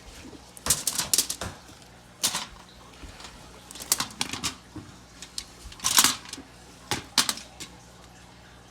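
Vegetable pieces being put onto a steak on aluminium foil: a series of irregular light taps and foil crinkles in short clusters.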